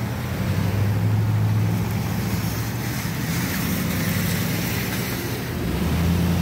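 A vehicle engine running close by: a low, steady hum whose pitch shifts down and up a few times.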